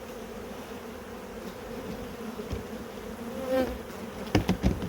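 Honeybees buzzing steadily around the open hive, one flying close past about three and a half seconds in. A few sharp knocks near the end.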